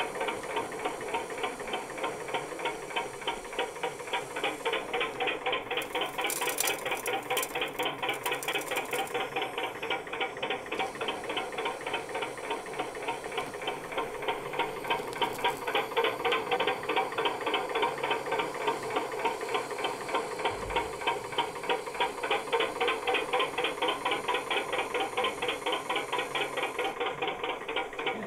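Working model dragline excavator's motor and geared winch running, a rapid even clicking of several clicks a second as it hauls its chain-hung bucket through sand and lifts it.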